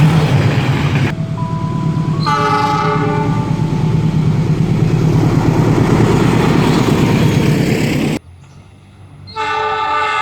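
A passing train's heavy rumble, with a short locomotive air-horn chord about two seconds in. The sound cuts out abruptly a little past eight seconds, then another multi-tone horn blast starts near the end.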